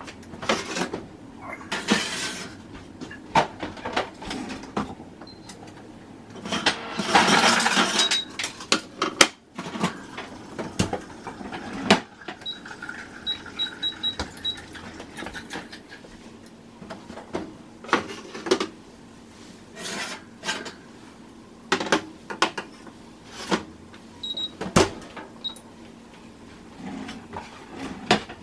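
Kitchen handling sounds at an electric range: scattered clicks and knocks, a louder rustling noise about seven seconds in, and a few faint short high beeps in the middle.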